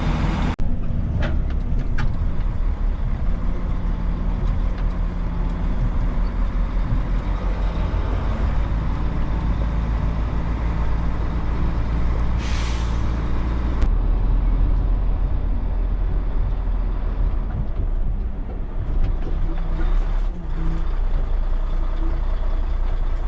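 Heavy truck's diesel engine running steadily under way, with a short burst of hiss about twelve seconds in.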